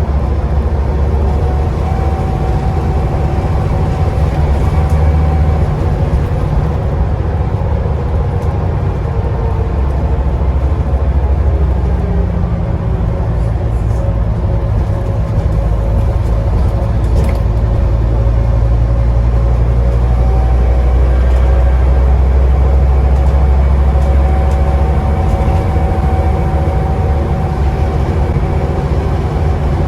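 Scania bus engine running on the move, heard from inside the lower deck: a deep, steady drone that shifts in pitch about twelve seconds in and again about twenty seconds in. A faint whine comes and goes over it.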